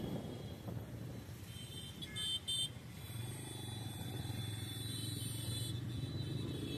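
Busy city road traffic heard from a moving vehicle: a steady engine and road hum, with two short high beeps of a vehicle horn about two seconds in.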